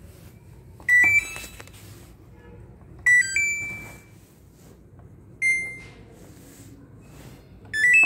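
Samsung top-load washing machine's control panel beeping as its buttons are pressed to power it on and set a spin cycle: four short electronic chimes about two seconds apart, most of them two or three quick rising notes.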